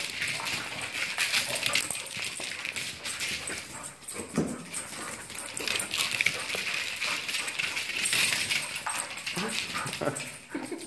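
A Siberian husky and a smaller dog in rough play: constant scuffling and clicking of claws and paws, with short dog vocalisations about four seconds in and again near the end.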